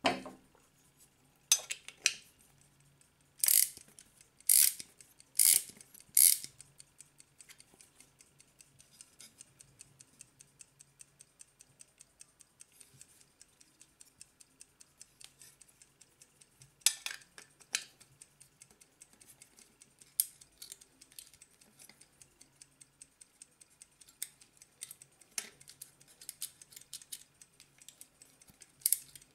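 Soviet naval ship clock movement with a platform escapement, ticking rapidly and evenly. Sharp metallic clicks and knocks from handling the movement and its plate cut in several times in the first six seconds and twice more about halfway through.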